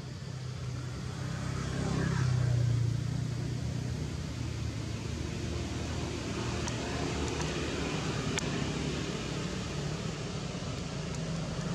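Motor vehicle engine rumble. It swells about two seconds in, as if passing close, then settles into a steady hum. A few sharp faint clicks come in the middle.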